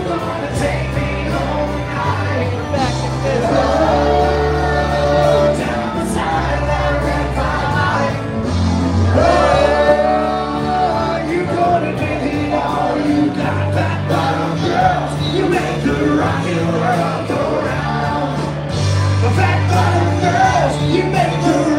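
A band playing a song with a singer, loud in a crowded bar, over a bass line that steps between notes every second or two.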